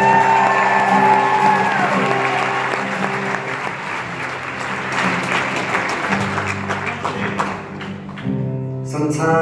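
Audience applause over a live band's instrumental playing. The applause dies away about eight seconds in, leaving the band's instruments heard clearly.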